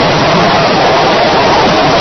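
A train passing directly over a camera lying between the rails: a loud, steady noise from the wheels and undercarriage going by overhead.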